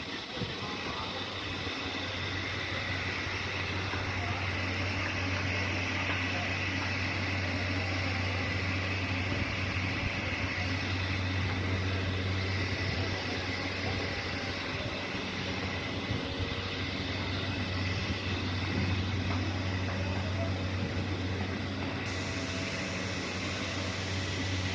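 Woodworking saw machine running steadily, with a constant low motor hum and an even whirring noise.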